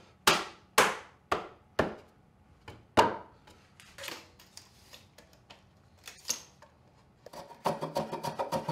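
Sharp knocks on a dovetailed alder box as it is fitted and clamped up on a workbench: five hard strikes in the first three seconds, then lighter taps and clicks. Background music with a plucked, percussive beat comes in near the end.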